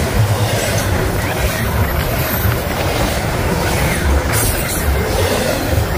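Double-stack intermodal freight train running past at trackside at about 60 mph: the steady, loud noise of container well cars and their wheels on the rails.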